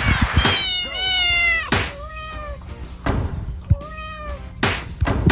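Cat meows, three or four high calls that bend in pitch, the first long and drawn out, mixed with a series of sharp thuds and knocks.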